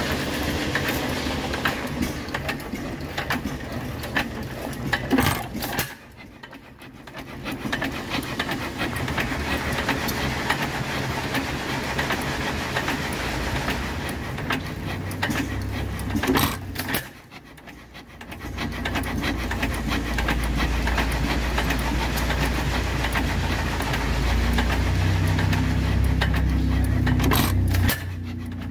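Antique single-cylinder hit-and-miss gas engines running, including an Economy engine up close: a steady mechanical clatter of clicks with a low rumble that grows stronger in the second half. The sound dips sharply twice, about six and seventeen seconds in.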